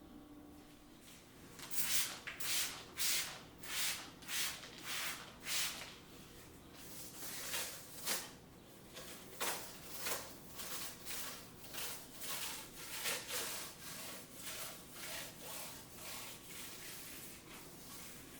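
Repeated abrasive rubbing strokes by hand, like sanding a part: about two strokes a second at first, then quicker and less even from about seven seconds in.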